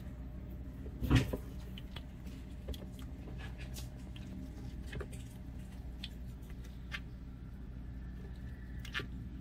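Scattered small clicks and taps of toads and a box turtle moving and feeding on a hard plastic floor, with one louder thump about a second in, over a steady low hum.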